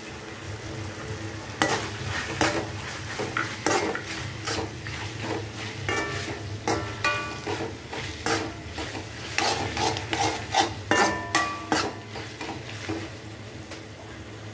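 A metal spatula scraping and clinking irregularly against a metal kadai as onions and capsicum are stirred and tossed in a sauce. The mix sizzles as it fries over high flame, and a few strokes leave the pan ringing briefly.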